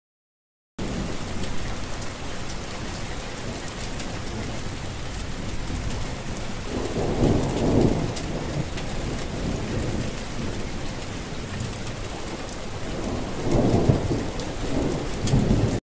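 Steady rain falling, starting abruptly about a second in, with a low rumble of thunder swelling twice: about seven seconds in and again near the end.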